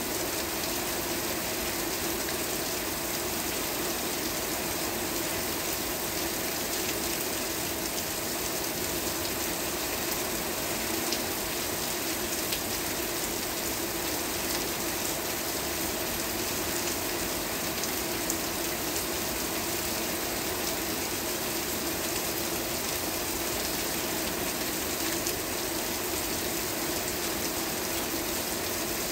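Steady rain, an even hiss with scattered ticks of individual drops.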